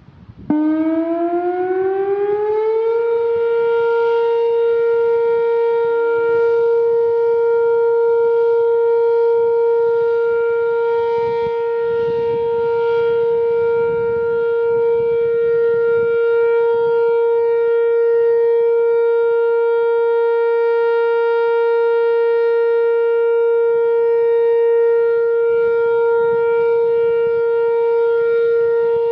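Whelen WPS-4004 electronic outdoor warning siren sounding its steady Alert tone, the signal used for tornado warnings, here sounded as a test. The tone starts about half a second in, rises in pitch over about two seconds, then holds one loud, steady pitch.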